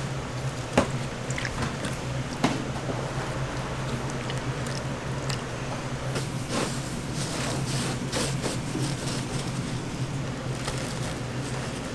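Gloved hands dipping croquette dough balls into a steel bowl of wet batter and pressing them into breadcrumbs: soft squelching and crumb rustling with scattered small ticks and a couple of sharp knocks, the loudest about a second in. A steady low hum runs underneath.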